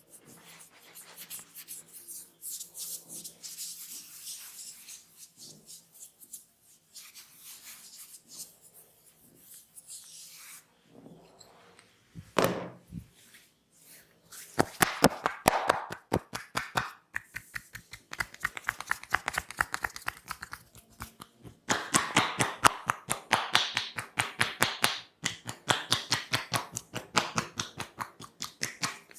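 Hand massage of the head and neck: palms rubbing over skin and hair, then from about halfway a fast, rhythmic run of tapping strokes with the hands.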